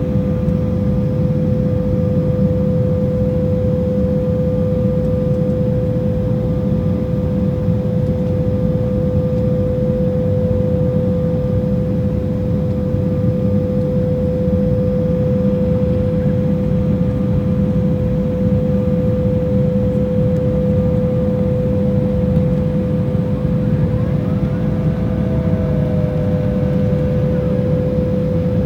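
Cabin noise inside an Embraer regional jet on descent: a steady rush of airflow and turbofan engines with a constant whine. Near the end, a second, higher whine rises in and holds.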